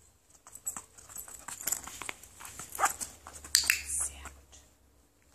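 A dog handling its own collar: light clicks and rattles of the collar and harness metal fittings as it moves, with a short falling dog whine about three seconds in.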